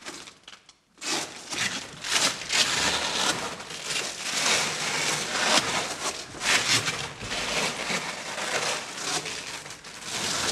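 Hook-and-loop (velcro) surfaces of a performer's wrapping rubbing and pulling against the velcro-lined cone around her: a continuous scratchy crackle that starts about a second in and swells and eases unevenly with her movements.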